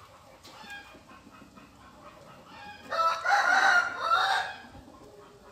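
A rooster crowing once, about three seconds in, lasting about a second and a half.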